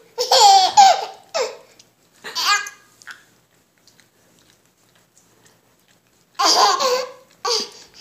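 Seven-month-old baby laughing and squealing in short bursts, set off by an adult's hiccups. There are several bursts in the first few seconds, a quiet stretch of about three seconds, then more laughter near the end.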